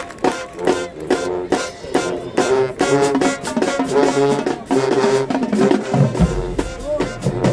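Marching band playing: brass over a steady drum beat, with a deep bass-drum hit about six seconds in.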